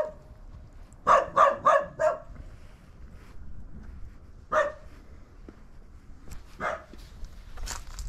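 A dog barking: four quick barks about a second in, then single barks about halfway through and again near the end.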